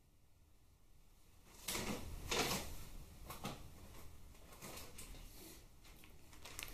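Rummaging: a few knocks and rustles starting about two seconds in, then softer shuffling, as a small bagged part is searched out from among other things.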